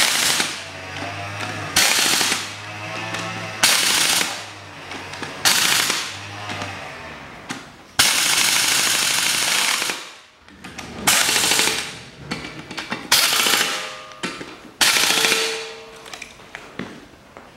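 Impact wrench hammering in about eight bursts, one of them about two seconds long in the middle, driving the mounting bolts that draw a new front hub bearing assembly into the steering knuckle.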